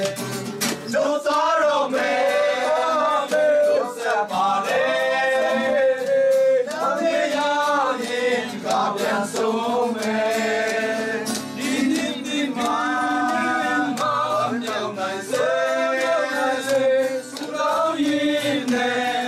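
A small group of voices singing a Christmas carol together, with long held notes, accompanied by an acoustic guitar and hands clapping along.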